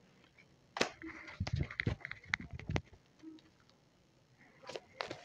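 Tarot cards being shuffled and handled: scattered soft clicks and rustles in two spells, with a pause of about a second and a half between them.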